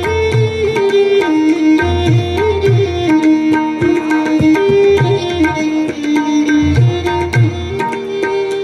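Violin bowed Indian-style, playing a slow melody of held, stepping notes in raag Yaman. A tabla accompanies it with a steady pattern of deep bass strokes and sharp treble strokes.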